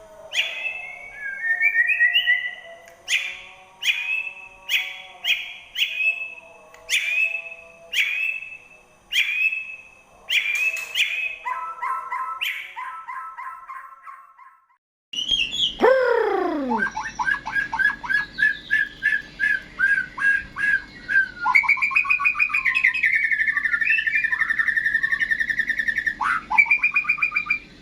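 White-rumped shama singing: a run of loud, repeated sharp phrases about once a second, then, after a short break, a faster, continuous stream of varied song.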